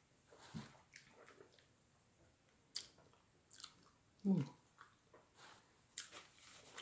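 Close-miked chewing with wet mouth sounds, small smacks and clicks. About four seconds in comes a short low hum, the loudest moment.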